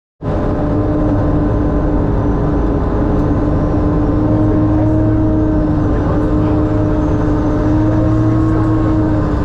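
Sherp amphibious ATV's diesel engine running steadily as the vehicle drives across lake ice: a constant drone that holds one pitch throughout.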